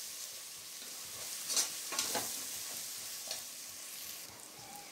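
Onion masala with freshly added chilli powder sizzling in hot oil in an aluminium pressure cooker. It is stirred with a metal spoon, giving a few short scrapes about one and a half to two seconds in.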